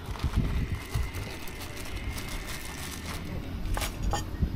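Wind buffeting the microphone as an uneven low rumble, with a few sharp clicks about four seconds in.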